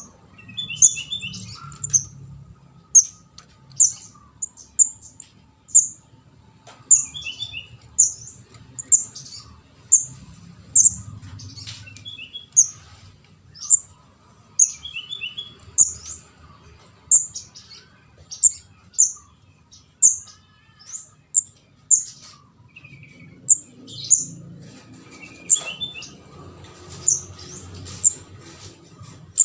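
Kemade (scarlet-headed flowerpecker) chicks calling: short, sharp, very high-pitched notes about once a second, with a quick trilled cluster of lower notes every few seconds. It is a nestling call recording used as a lure for trapping the species.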